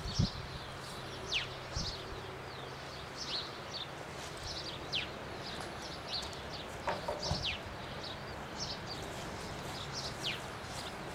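Small birds chirping and calling, many short high notes and quick downward-sweeping calls repeating throughout. A low thump comes right at the start, with a few softer ones later.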